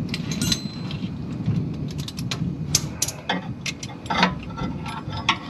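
Metal hand tool working a bolt up near the engine's flywheel: irregular sharp metallic clicks and clinks over a low rumble.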